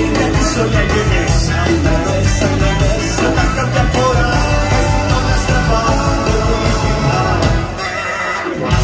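Live band playing a rock song with a singer. The drums and bass drop out for about a second near the end, then the full band comes back in.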